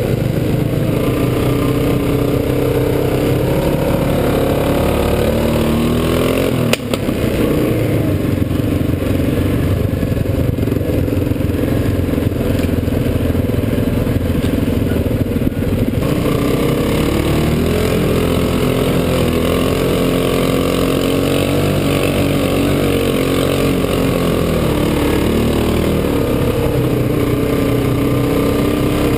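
Quad bike engine running close to the microphone, its pitch rising and falling as the throttle opens and closes, with one sharp knock about seven seconds in.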